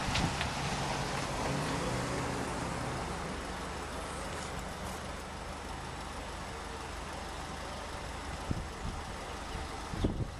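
Steady rumble of vehicles, with a low engine hum that fades out over the first few seconds, and a few knocks near the end.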